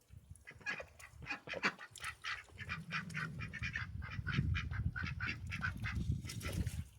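Domestic ducks and geese calling in a rapid run of short honks and quacks, several a second, with a steady low rumble underneath from about three seconds in.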